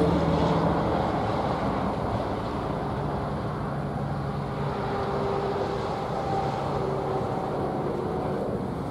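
Union Pacific diesel locomotive running with a steady engine drone.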